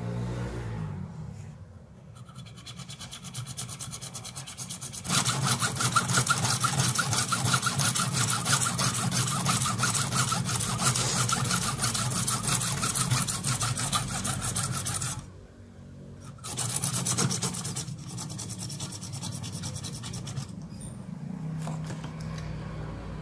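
Hand hacksaw cutting through a brass crankshaft part for a small Stirling engine, with rapid back-and-forth strokes. The strokes start light, become steady and loud from a few seconds in, stop briefly about two-thirds through, and come back in a short burst before easing off near the end.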